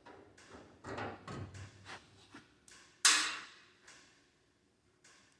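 Clattering knocks from handling things, then one loud bang about three seconds in that rings briefly and dies away.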